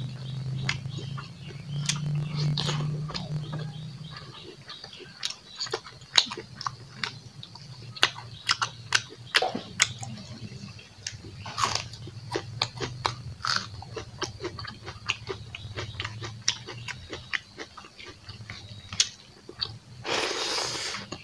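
Close-up mouth sounds of a man chewing soft braised pork and rice: frequent sharp, wet clicks and smacks at an uneven pace, with a brief louder rush of noise near the end.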